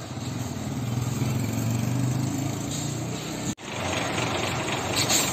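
Vehicle engines in street traffic: a motorcycle engine running close by among town buses. After a brief dropout about three and a half seconds in, buses idling with general traffic noise.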